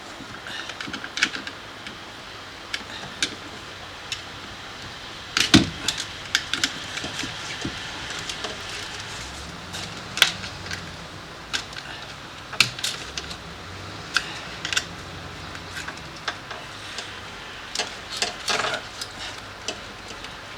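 Irregular clicks, taps and small rattles of a screwdriver and plastic clips being worked on the lock actuator inside a 2011 Nissan Sentra's door, with a sharper knock about five seconds in.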